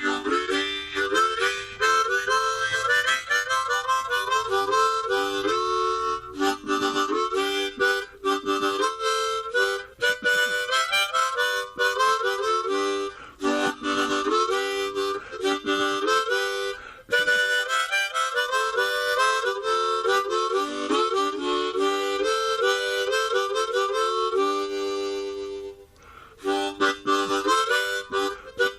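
Harmonica music: a melody of short notes stepping up and down, played without a break.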